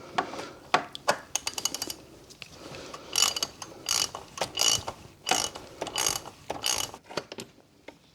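Ratchet wrench with a 24mm socket being worked back and forth on the oil filter housing cap to loosen it, its pawl clicking in about six quick bursts with a light metallic ring, after a few separate clicks of the socket being fitted.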